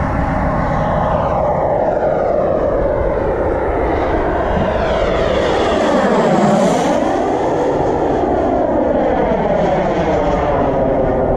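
Kingtech K80 turbine of a model MB-339 jet making a fast low pass: a steady rushing turbine whine with a flanging sweep that falls as the jet closes in, bottoms out as it passes about six and a half seconds in, and rises again as it climbs away.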